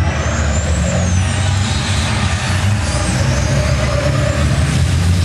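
A pack of race trucks' turbo-diesel engines running loud together as they go through a corner, a heavy steady drone with thin high whistles gliding up and down above it.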